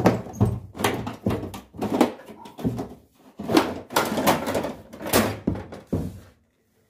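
Plastic front casing of a wall-mounted Daikin split air conditioner's indoor unit being pried and pulled off: a run of irregular knocks, clunks and scraping rattles that stop shortly before the end.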